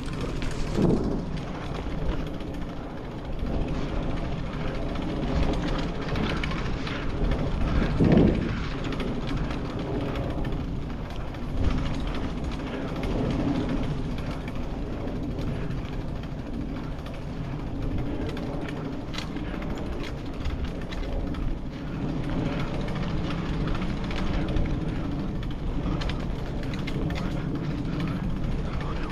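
Steady rolling noise of a bicycle being ridden along a path: tyre and frame rattle, with a few louder bumps about a second in and around eight seconds in.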